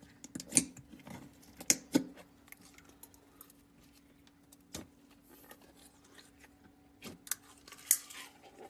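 Slime being squeezed and worked by hand, giving a series of sharp clicks and pops from trapped air, the loudest about half a second in, near 2 seconds and near the end.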